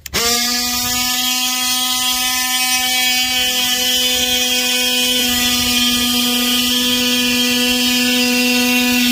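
Cordless oscillating multi-tool starting up and cutting along a straight-edge board through the bunk's vinyl-covered wood panel: a steady buzz that holds one pitch once it starts.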